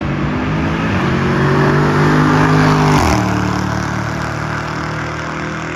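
Car engine running hard at high revs, then the throttle is lifted about three seconds in and it drops to lower, steadier revs.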